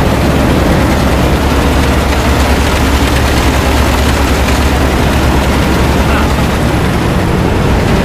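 New Holland TR70 combine's gasoline Ford V8 running steadily close by, a loud, even low drone.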